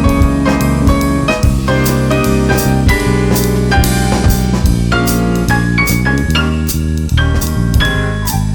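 Jazz band playing, with piano and a drum kit keeping a steady beat with regular cymbal strokes.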